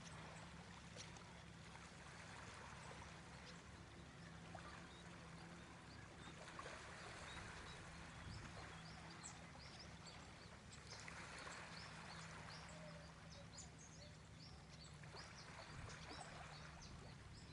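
Near silence: a low steady hum, with a few faint soft swishes and scattered small ticks.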